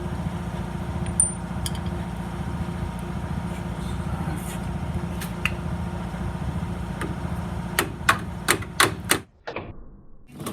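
A power tool runs steadily with a fast rattle while working at rusted brake caliper bolts, then stops near the end. About five sharp metallic knocks come just before it stops.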